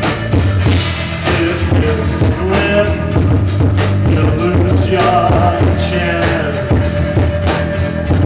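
Rock band playing live: a man singing over electric guitars, a heavy steady bass line and a drum kit keeping an even beat.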